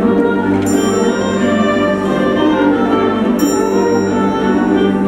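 Festive orchestral music with sustained held notes, and a bright ringing accent struck twice, about a second in and again about two and a half seconds later.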